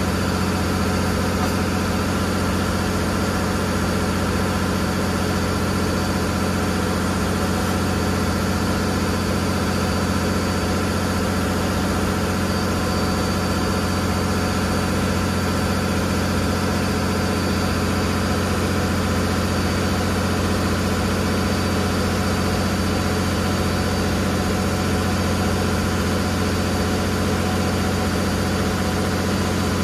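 A river boat's inboard engine running steadily underway: a constant low drone that holds the same pitch and level throughout.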